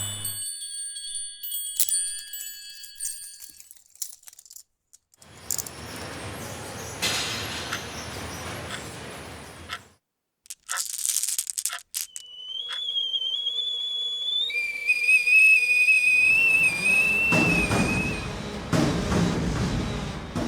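A run of separate short sound effects: high electronic beeps and tones, a stretch of hissing noise, a brief hiss burst, then a long whistled tone held at one pitch and stepping down to a lower one, overlapped near the end by a loud low rumble.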